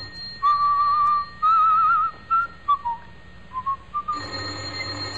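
A person whistling a tune: a string of notes with a wavering vibrato, some held for about half a second, others short, with brief gaps between them.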